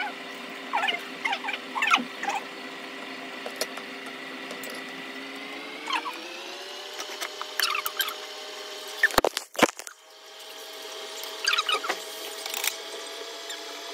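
Chewing and mouth sounds of someone eating rice by hand: small wet clicks and crackles in short clusters. A steady hum runs underneath and rises in pitch about six seconds in. Two sharp knocks come just after nine seconds, as a hand handles the camera.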